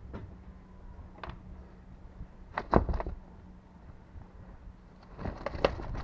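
Handling knocks on a fishing boat deck: a few light taps, then a loud thump a little under three seconds in, and a burst of rustling near the end as a cloth rice sack is picked up. A low steady hum runs underneath.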